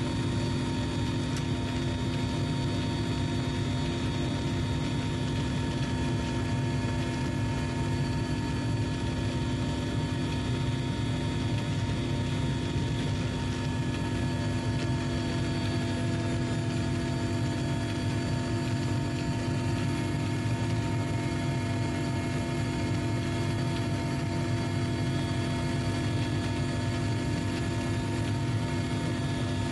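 Steady drone of an aircraft engine heard from on board: an even low rumble with several steady whining tones over it, unchanging throughout.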